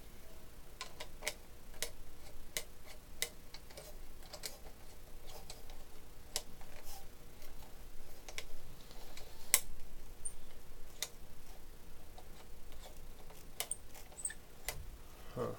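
Irregular light plastic clicks and taps as self-tightening propellers are turned by hand onto the motor shafts of a DJI Phantom 1 quadcopter and its plastic body is handled. One sharper click comes about two-thirds of the way through.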